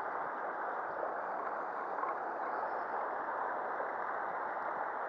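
Shallow stream running over a pebbly bed, a steady rushing of water.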